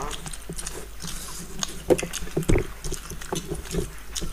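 Eating sounds: wet chewing and lip-smacking on fish head and curry rice, with fingers squishing rice on steel plates, as a run of irregular small clicks and a couple of dull knocks about halfway through.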